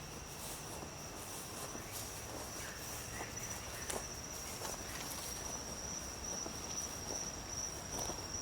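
Steady high-pitched trilling of crickets, with scattered footsteps over the ground.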